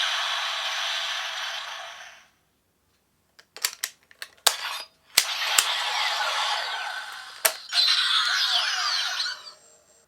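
Toy electronic sound effects from a CSM Lockseed's speaker, punctuated by sharp plastic clicks of the lock mechanism. A fading electronic effect is followed by a short silence, then a quick run of clicks, then a second electronic effect with sweeping tones, with one more click partway through it.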